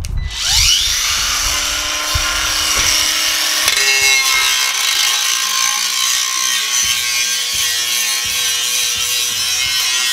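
Cordless angle grinder spinning up with a rising whine, then running steadily as its abrasive disc grinds rust off a steel spade blade.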